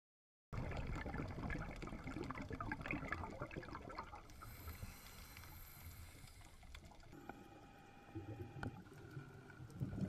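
Underwater sound from a diver's camera housing: scuba exhaust bubbles gurgling and a dense crackle of clicks, starting abruptly about half a second in. The middle is quieter, with a faint steady whine, and a louder low rush of bubbles comes back near the end.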